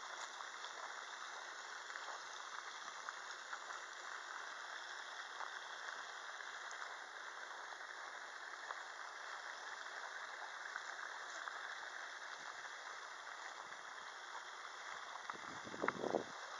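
Faint steady background hiss, then near the end a dog splashing as it wades in the shallow edge of a pond.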